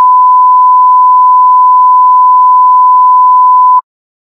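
A single loud electronic beep: one pure, steady tone held for several seconds that cuts off abruptly near the end.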